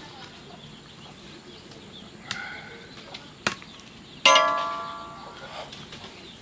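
Metal kitchenware clanking: a couple of light knocks, then about four seconds in one sharp metallic clang that rings and dies away over about a second.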